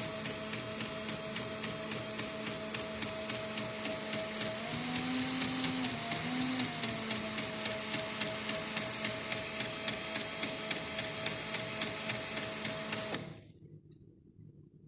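Cordless drill-driver motor spinning a threaded rod as a winding machine, with a computer keyboard key clicking regularly as a plastic piece presses it once per turn to count the transformer's turns. The motor's pitch rises briefly about five seconds in, then settles. Motor and clicks stop abruptly near the end.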